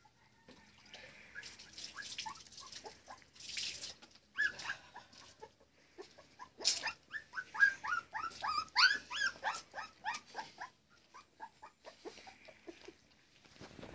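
Nursing puppies whimpering and squealing in short, high cries, several a second, loudest and most crowded in the middle stretch before thinning out.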